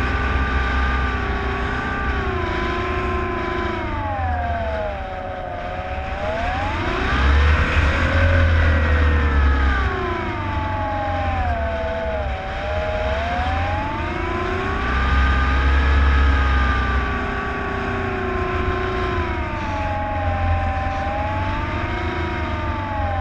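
Skywalker 1680 RC plane's electric motor and propeller whining, its pitch swelling and sinking several times with the throttle, loudest and highest about a third of the way in and again past the middle. Wind rumbles on the onboard microphone and grows with the motor.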